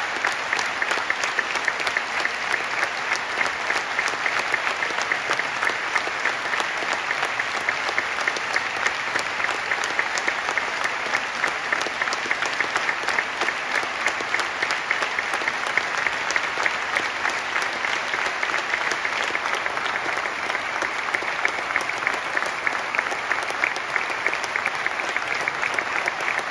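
Large crowd applauding steadily, a dense, unbroken patter of many hands clapping.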